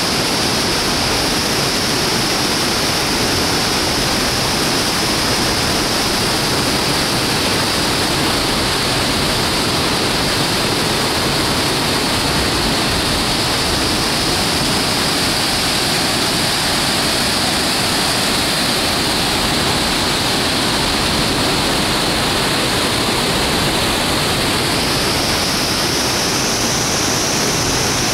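Water jetting from the edges of a reservoir dam's steel spillway gate and pouring down the concrete face, a loud, steady rush with a hiss of spray. These are the gate's normal daily leak points, not cracks in the dam.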